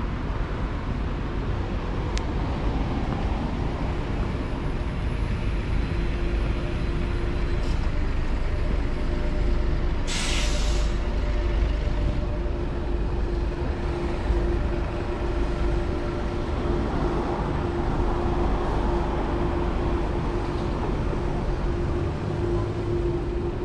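Road traffic passing on a city street in a steady rumble, with a sharp hiss lasting about a second, about ten seconds in, and a steady hum in the second half.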